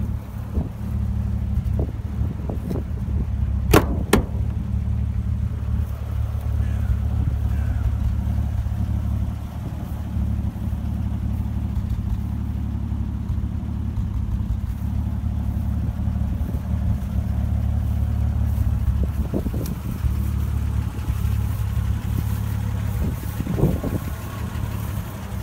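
Delahaye 148 L's six-cylinder engine idling steadily, with one sharp click about four seconds in.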